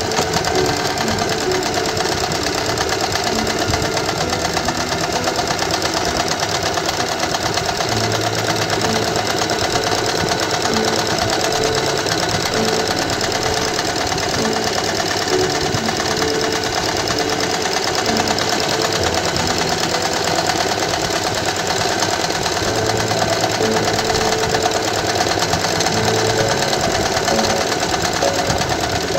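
Domestic electric sewing machine fitted with a darning foot, running steadily at speed and stitching continuously as it darns a tear in the fabric.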